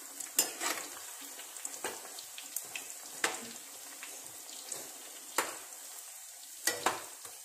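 Lumps of ground chana dal dough deep-frying in hot oil in a kadai, a steady sizzle. Now and then a metal slotted spoon clicks and scrapes against the pan as the pieces are turned.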